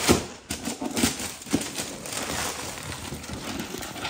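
Gift wrapping paper and tissue paper being torn and crumpled as a present is unwrapped, with a few sharp rips in the first second and a half, then softer rustling.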